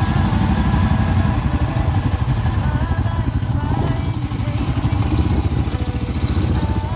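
Suzuki DR650's single-cylinder engine running steadily under way at road speed, a fast even beat of firing pulses.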